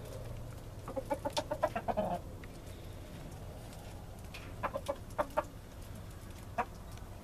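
Rooster clucking nervously: a quick run of clucks about a second in, then a few scattered clucks later, the sound of a spooked bird uneasy at a person close by.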